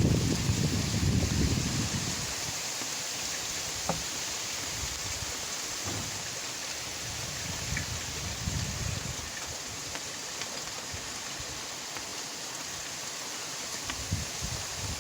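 Steady rain falling in an even hiss, with a low rumble during the first couple of seconds and a few faint single drip ticks.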